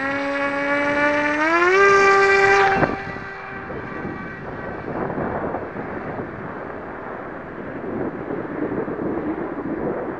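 Small RC plane's electric motor and propeller whining, rising in pitch as the throttle is opened for a hand launch, then holding. A sharp knock comes just before 3 seconds in, the whine dies away as the plane flies off, and wind on the microphone takes over.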